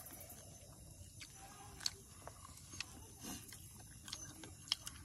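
Quiet close-up eating sounds of people eating rice and curry by hand: faint chewing and wet mouth noises with a few sharp clicks.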